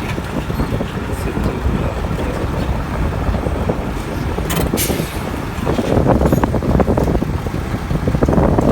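Heavy diesel machinery running with a steady low rumble, wind buffeting the microphone. A short sharp clack comes about four and a half seconds in.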